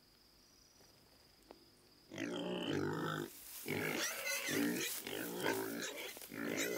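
Wild boar giving a run of about four loud, harsh grunting squeals, starting about two seconds in, each around a second long with short breaks between. Before them there is only a faint steady high buzz.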